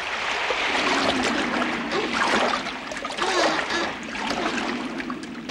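Sound effect of flood water splashing and gurgling, swelling and ebbing in loudness.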